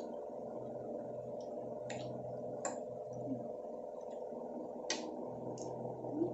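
Mouth sounds of eating: a handful of short, wet smacks and clicks from chewing food, spaced irregularly over a steady low background hum.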